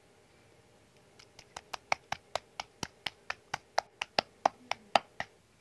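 A pestle pounding raw boneless chicken in a stone mortar, beating it into a smooth paste. It makes a quick, even run of sharp knocks, about five a second, starting about a second in and stopping shortly before the end.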